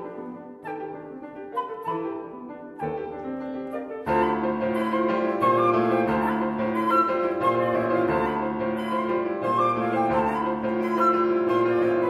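Concert flute and Petrof grand piano playing a contemporary classical duet. About four seconds in, the music turns louder and fuller, with many notes held together.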